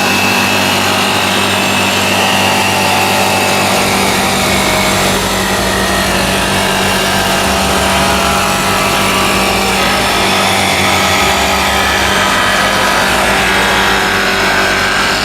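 A power tool or woodworking machine running steadily while cutting wood.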